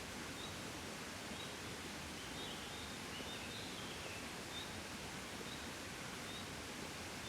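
Gentle steady wind, with a small bird giving a short high chirp about once a second and a brief run of twittering near the middle.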